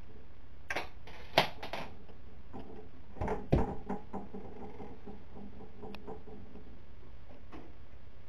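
Knocks and scuffs of cats scrambling on a wooden chair while playing, in two short flurries: a sharp click about one and a half seconds in, and a heavier thump about three and a half seconds in.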